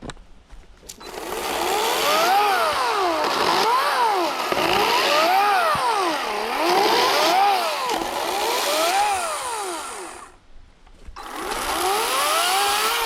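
Chainsaw cutting into a Virginia pine trunk, its engine pitch rising and falling over and over as the chain loads and frees in the cut. It stops briefly about ten seconds in, then runs again.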